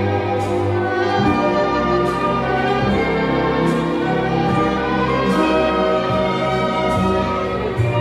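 Orchestral background music: sustained string-like notes with a bass line that shifts every second or so.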